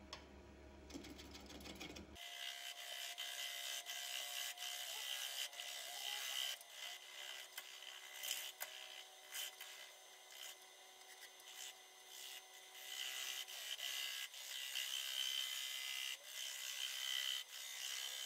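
Turning tool cutting the base of a spinning willow bowl on an Omega Stubby 750 wood lathe: a rasping hiss of shavings that swells and fades as the tool is worked, starting about two seconds in.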